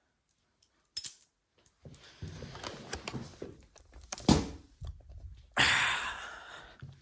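Balisong knives being handled: metal clicks and rattles, a sharp knock a little after four seconds, and rustling as one knife is put down and the next picked up.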